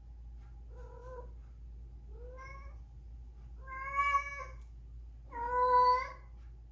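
Female domestic cat in heat yowling: four drawn-out calls that grow louder, the last the longest. This is the mating call of a cat in heat, which here is a cat spayed two years before.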